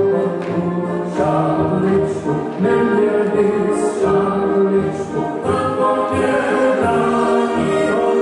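Czech folk song sung by a group of voices in unison, carrying on without a break.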